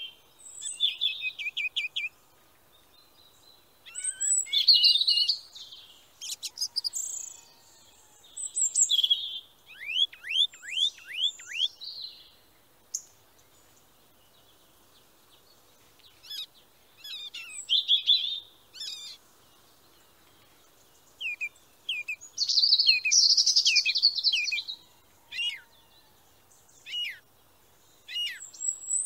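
Songbirds singing in phrases of high chirps and trills, including a run of quick falling notes, with gaps of a few seconds between the phrases.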